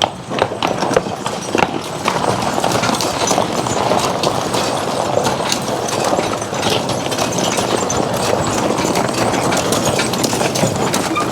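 A team of draft horses moving at a walk: hooves clopping in a dense, steady clatter of small knocks and rattles.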